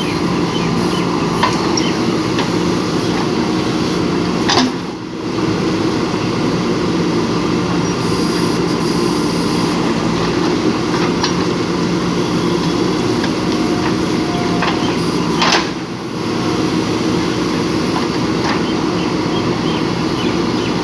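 Diesel engine of a JCB backhoe loader running steadily under work, with scattered metallic clanks. The sound dips briefly twice, about five seconds in and near sixteen seconds.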